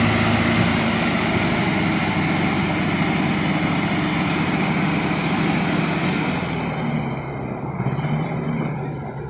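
Motor vehicle engine running steadily, fading away over the last couple of seconds, with a brief hiss about eight seconds in.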